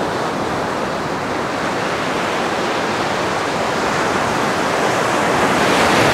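Ocean surf breaking on the beach: a steady rush that swells a little louder near the end.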